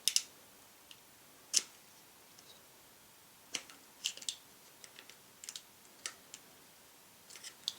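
Scattered light clicks and taps of pliers and a small coil spring against a Glock 22 Gen4 pistol frame as the magazine catch spring is fitted back into its hole. The strongest clicks come right at the start and about a second and a half in, with small groups of ticks later.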